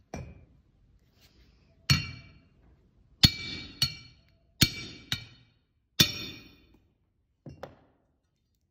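A hammer striking the spine of a 65G steel sword blade laid on an anvil, driving its edge through nails. There is a light tap, then six sharp metallic strikes over about four seconds, each ringing briefly, then two light knocks near the end.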